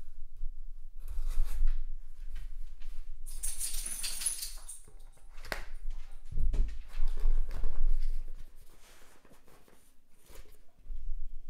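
Cardboard shipping box being handled and worked open by hand, with rustling and scraping. A few seconds in comes a dense stretch of harsh scraping, then a sharp click, then low thuds of the box against the tabletop.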